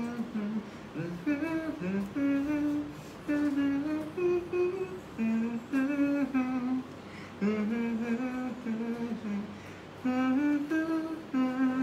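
A man humming song tunes, holding notes that step up and down in short phrases with brief breaks between them.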